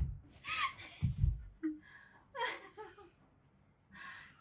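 A person's short breathy gasps and stifled chuckles, with a couple of low thuds in the first second and a half.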